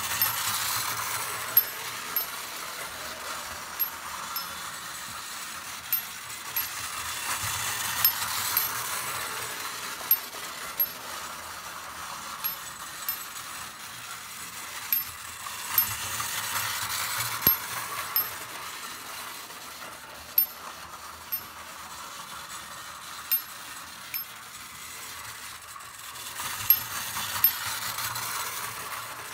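Prewar Marx clockwork windup toy train running on tin track: a steady whirr of the spring motor and rolling wheels that swells each time the train comes near, about every eight seconds, with sharp metallic clicks every second or so.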